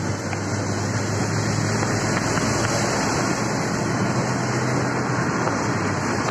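Steady road noise inside a moving car: tyres hissing on a wet road over a low, steady engine hum.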